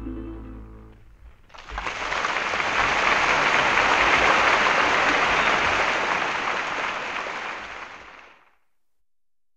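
Audience applauding as a live jazz recording ends. The applause starts about a second and a half in, holds steady, and fades out shortly before the end.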